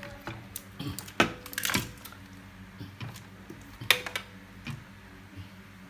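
Irregular clicks and knocks from handling things at close range, loudest about a second in and again near four seconds in, over a faint steady low hum.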